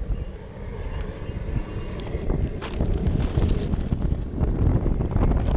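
Wind buffeting the microphone with a steady low rumble, with a plastic food bag crinkling now and then as its contents are shaken into the boil pot.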